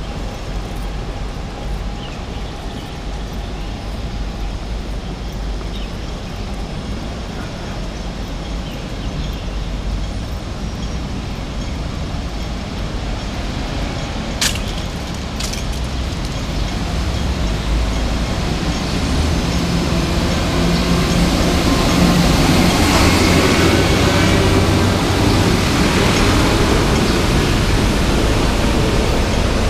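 City road traffic running steadily alongside, growing louder in the second half as vehicles pass close. Two sharp clicks come about halfway through.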